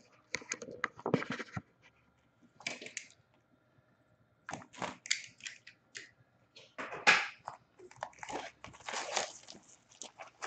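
Plastic shrink-wrap crinkling and tearing in irregular bursts as it is stripped off a cardboard box of trading cards, with the box handled and opened; the loudest crackle comes about seven seconds in.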